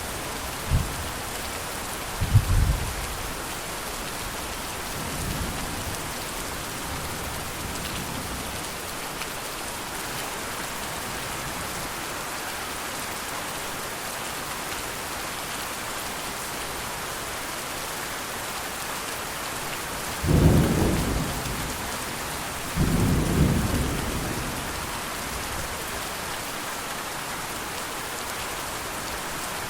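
Steady rainfall pattering, with distant thunder rumbling. Short low rumbles come in the first few seconds, and two louder rolls of thunder come about two-thirds of the way through.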